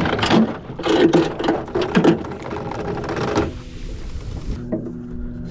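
Anchor chain rattling as it is paid out over the boat's metal bow roller to drop anchor. The clattering stops about three and a half seconds in.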